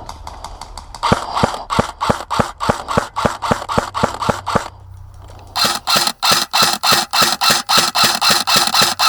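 Airsoft rifles firing long strings of rapid shots: about a second in, a string at roughly five shots a second lasts a few seconds, then after a short pause a second, sharper and faster string runs until the end.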